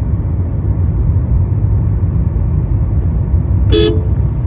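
Steady low rumble of a vehicle being driven: engine and road noise. A brief sharp tone sounds once about three and a half seconds in.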